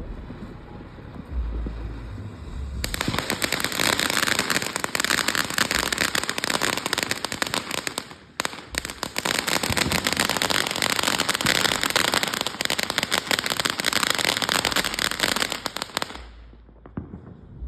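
A firework going off as a dense, rapid crackle. It starts about three seconds in, breaks off briefly near the middle, and stops abruptly about a second before the end.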